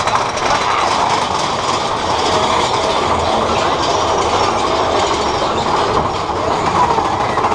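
Big Thunder Mountain Railroad mine-train roller coaster running along its track, heard from a seat on the moving train: a steady, loud rattle and clatter of the cars and wheels.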